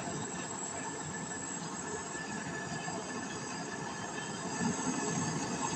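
Gas brazing torch flame burning steadily on copper refrigerator pipe: an even hissing rush with faint steady whistling tones, a little louder near the end.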